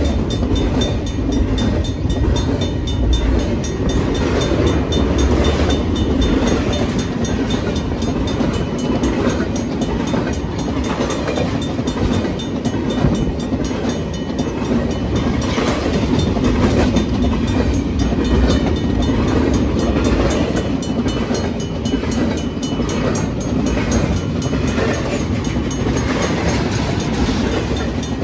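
BNSF double-stack intermodal freight train rolling past close by, its container well cars rumbling steadily on the rails. Repeated clicks from the wheels run throughout.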